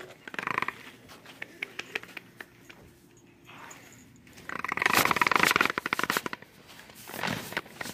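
Handling noise from a phone held in the hand: scattered clicks, then a burst of rapid rustling and clicking lasting about a second and a half, about halfway through, as fingers rub over the microphone, and a shorter scrape near the end.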